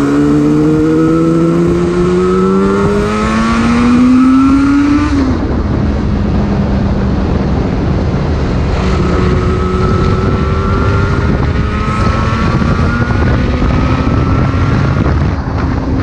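Yamaha RZ250's two-stroke parallel-twin engine pulling hard: its pitch climbs for about five seconds, drops sharply, then climbs slowly again, with wind rushing over the microphone.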